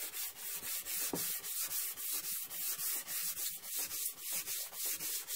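Sandpaper rubbing over an oiled maple and epoxy board in quick, even back-and-forth strokes, about four or five a second. This is oil sanding, with mineral oil in place of water, which works the oil into the wood while polishing the epoxy.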